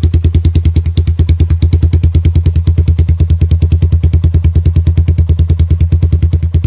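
1985 Honda ATC 200X three-wheeler's single-cylinder four-stroke engine idling steadily with a deep thump, about ten even beats a second, running off choke after a cold start.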